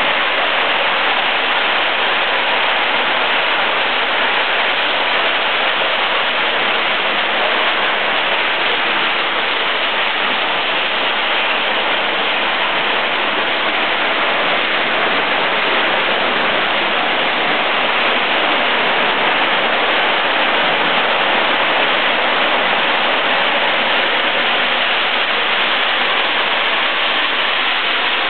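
Plastic-bottle cap and label removing machine running: a loud, steady rushing noise with no distinct beat or pitch.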